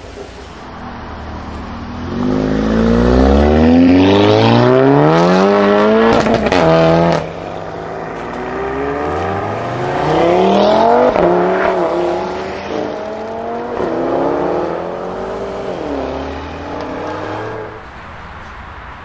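Mk7 Volkswagen Golf R's turbocharged four-cylinder, breathing through an aftermarket iPE exhaust, accelerating hard, its pitch climbing for several seconds. A few sharp cracks come near the top, then the note drops suddenly about seven seconds in. It then revs up and down again several times before fading.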